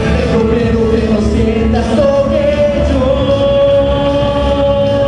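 A singer performing into a microphone over loud amplified backing music with a steady bass. The vocal line moves in a short falling phrase, then holds one long note from about halfway through.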